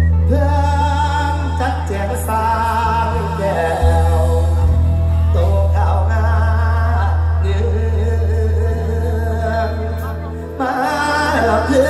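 Mor lam singing: a male voice through a microphone and PA in long, wavering, ornamented phrases, over live band accompaniment with a steady deep bass underneath.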